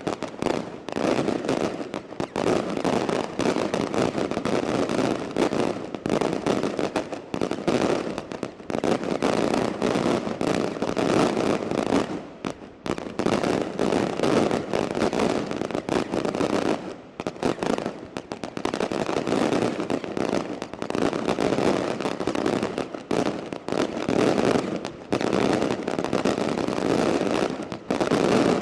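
Maltese daylight fireworks: a dense, almost continuous barrage of rapid bangs and crackling reports as aerial shells burst into clusters of small salutes, easing briefly about twelve and seventeen seconds in.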